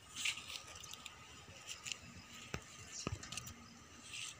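Faint rustling and handling noises as a packet is taken out of a hard instrument case, with two soft knocks a little past halfway.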